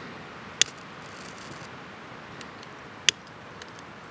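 Butane utility lighter's piezo igniter clicking twice, once about half a second in and again about three seconds in, over a faint steady hiss.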